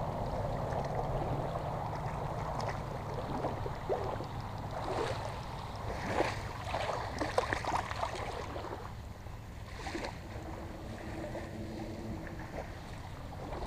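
Shallow salt water sloshing and splashing as a speckled trout is landed by a wading angler, with a cluster of sharp splashes and knocks about five to eight seconds in. A steady low wind rumble on the microphone runs under it.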